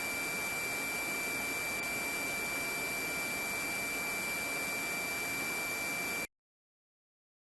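Steady hiss with a high-pitched steady whine from the police helicopter's radio and intercom audio feed between transmissions. It cuts off suddenly about six seconds in, leaving silence.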